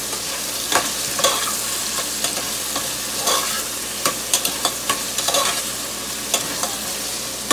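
A spoon stirring tomatoes and onions sizzling in a steel pot, with a steady hiss and irregular clicks and scrapes of the spoon against the pot.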